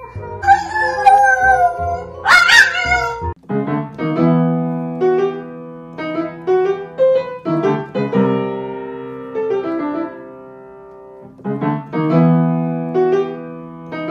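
A wavering, wailing cry that glides in pitch for about three seconds, with a sharp rising squeal near its end. It breaks off suddenly and gives way to piano music: single sustained notes in a slow melody over held low notes.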